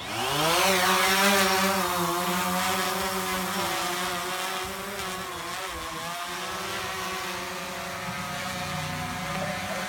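DJI Phantom 3 Professional quadcopter's four propellers spinning up for lift-off, with a whine rising quickly in pitch over the first second. It then settles into a steady, slightly wavering buzzing hum that fades a little as the drone climbs away.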